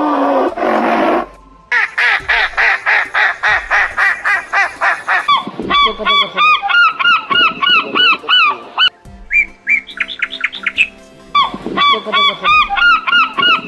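Gulls and geese calling in a flock: a fast run of harsh repeated calls, then strings of honking calls, with a short run of higher rising calls partway through.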